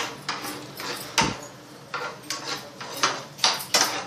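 A spoon stirring cashews frying in ghee in a non-stick pan, clicking and scraping against the pan in quick, irregular strokes, the loudest a little over a second in.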